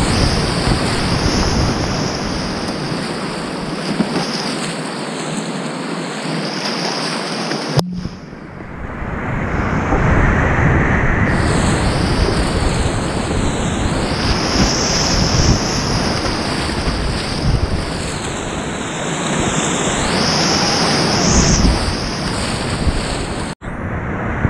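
Whitewater rapids rushing close around a kayak, a dense hiss of churning water with splashes. About eight seconds in the sound drops suddenly, then builds back up over a couple of seconds.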